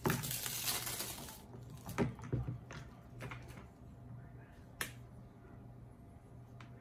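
Plastic wrapping crinkling for about a second and a half, then scattered clicks and knocks as a plastic-bagged reel of camera cable and the camera head are handled.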